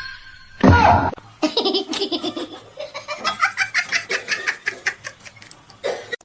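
A loud sudden burst a little over half a second in, falling in pitch, then a person laughing in a long run of quick 'ha-ha' pulses.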